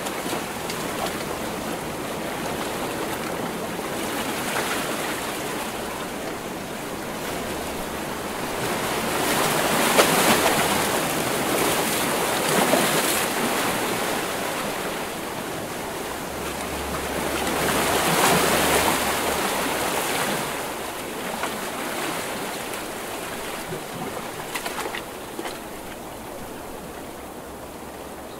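Ocean waves breaking on a shore: a continuous wash of surf, with two bigger waves swelling and crashing about ten and eighteen seconds in, then the water settling to a softer wash near the end.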